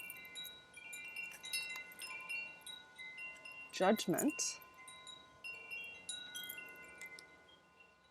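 Wind chimes ringing, several tones of different pitch struck at irregular moments and left to ring over one another.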